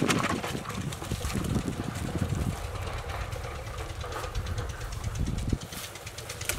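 A low steady rumble under light rustling and clicking as PVC pipe eel traps are handled and carried through grass.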